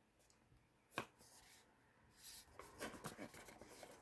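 Fingers handling and turning a cardboard perfume box: a single light tap about a second in, then soft rubbing and scraping of skin on the box's card from a little past two seconds on.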